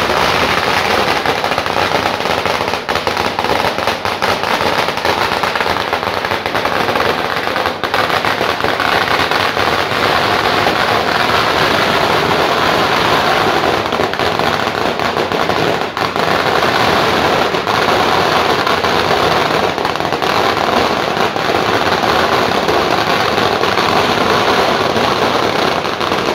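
A Conde sawa, a 5,000-round firecracker string, going off in a loud, continuous rapid-fire crackle of bangs without a break.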